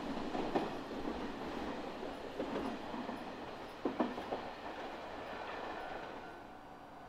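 Electric train running through the station, its wheels clattering over rail joints with a few sharp clacks, the sound dying away near the end as it moves off.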